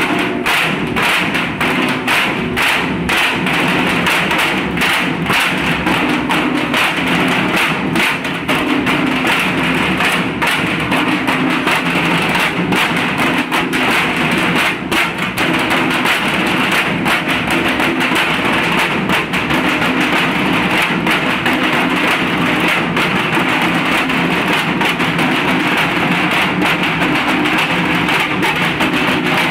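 A group of large barrel drums (dhak), each struck with thin sticks, played together in a fast, dense rhythm of many strikes.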